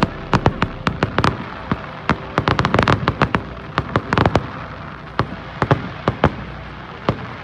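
Aerial fireworks going off in quick succession: a dense run of sharp bangs and cracks that thins out to a few scattered reports after about four seconds.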